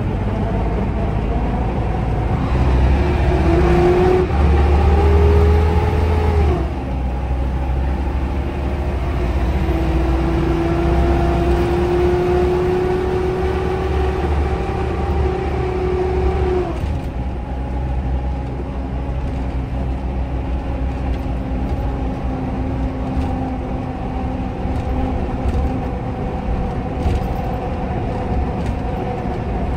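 Scania DC9 diesel engine and ZF Ecomat automatic gearbox of a Scania K310IB bus pulling away under load, heard from on board: a whine climbs in pitch and then falls suddenly twice, at about 6 and 17 seconds in, as the gearbox shifts up. After that it settles into a steadier run.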